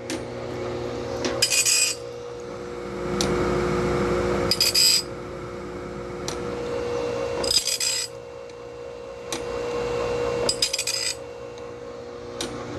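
Homemade cam-driven bandsaw blade sharpener at work: its grinding wheel grinds one tooth about every three seconds, four short metallic grinding rasps over the steady hum of the motors.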